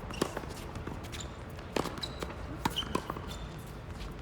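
Tennis ball knocks from play: a handful of sharp, separate hits and bounces, two of them close together about two-thirds of the way in, over a steady low background rumble.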